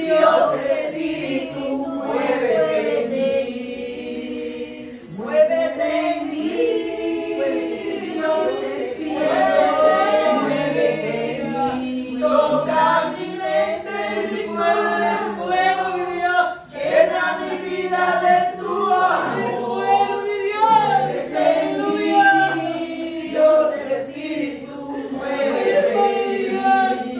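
A small group of voices, mostly women, singing a worship song together without instrumental accompaniment.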